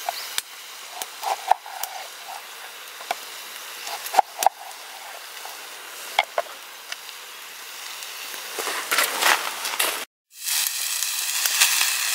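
Knife cutting lemons on a wooden cutting board: a handful of sharp taps and clicks of the blade on the board, with a rougher crunching stretch toward the end. After a short break near the end, a steady sizzle of meat and greens frying in a pan over a wood-burning stove.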